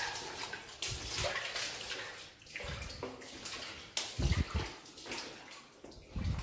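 Footsteps wading through shallow water, splashing and sloshing every second or two.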